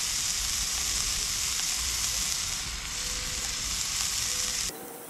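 Mayan cichlid fillets frying in oil in a pan on a portable butane stove: a steady sizzle that cuts off suddenly near the end.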